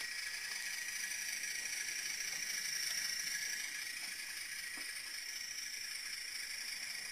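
HO-scale Broadway Limited Trackmobile model running on the track, its DCC sound decoder playing a diesel engine sound through the model's small onboard speaker. The sound is steady and mostly high-pitched, and swells a little about three seconds in.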